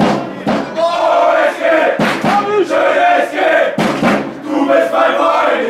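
Football supporters chanting together in long, held notes, with sharp beats struck now and then through the chant.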